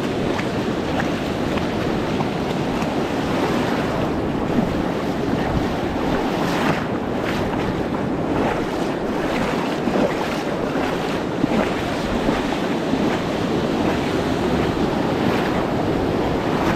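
Steady wind buffeting the microphone over the rush of sea water, as from a boat out on the ocean.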